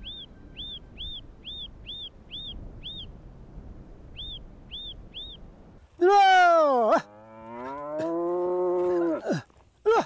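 Small birds chirping, short high calls about two a second, then a cow pulling a plough moos loudly: a short falling call about six seconds in and a longer held moo that drops away at its end.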